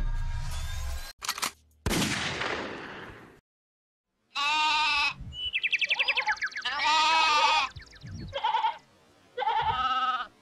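A sweeping, whooshing logo sound effect with a low rumble fades out a few seconds in. After a moment of silence, sheep bleat, about five wavering calls one after another.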